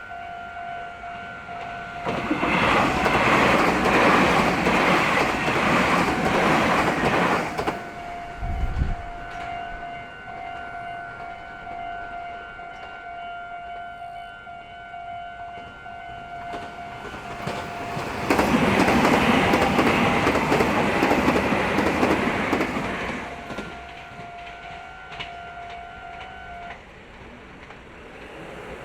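Japanese railroad crossing's warning bell ringing its steady repeated clang while a train passes about two seconds in and a second train passes about 18 seconds in, each with wheels clattering over the rails. The bell stops near the end, a few seconds after the second train has gone by.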